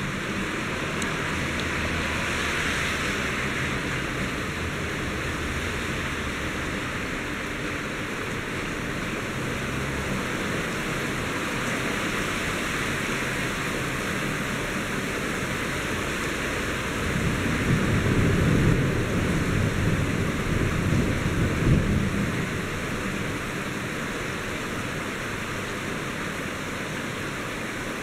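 Heavy rain of a thunder shower falling steadily, a continuous hiss. A louder low rumble swells for about five seconds past the middle.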